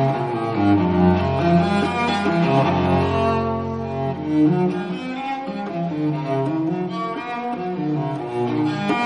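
Background instrumental music on bowed strings, with a cello playing held, changing notes at a steady level.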